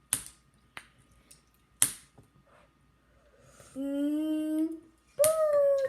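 Three sharp hand-made clicks, like snaps or claps, in the first two seconds, then a girl singing two long held notes, the second higher than the first.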